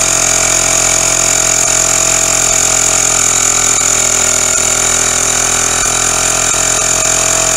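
12-volt tyre-repair-kit air compressor running steadily with a high whine, pushing sealant and air through its bottle and hose to inflate a flat tyre punctured by a nail.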